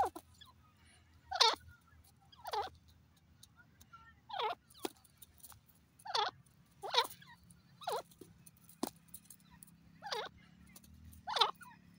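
Grey francolin giving a string of short, sharp calls, about ten of them spaced irregularly roughly a second apart.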